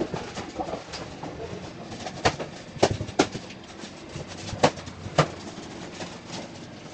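Five sharp clicks and knocks in an irregular run through the middle seconds, over a steady background noise: a steel tape measure and a metal floor outlet box being handled.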